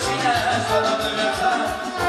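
Romanian party band playing an instrumental passage: a wavering lead melody over a steady bass and drum beat.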